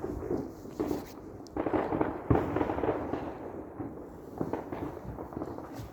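Fireworks going off: irregular sharp bangs and crackling, densest from about a second and a half to three seconds in.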